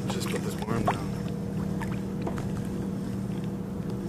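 Small waves lapping and slapping against a kayak hull, with a steady low hum underneath and a short pitched sound about a second in.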